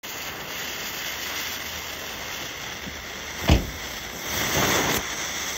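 A firecracker's lit fuse hissing and sputtering steadily as it burns down to the tube, with one short, sharp thump about three and a half seconds in.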